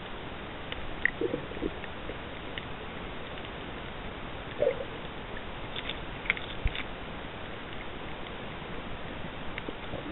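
Underwater ambience heard through a camera in the water: a steady hiss with scattered small clicks and a few sharper knocks.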